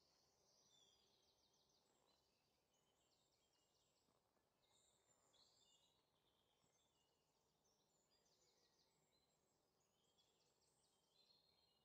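Near silence, with very faint, high, repeated chirps and trills over a low hiss.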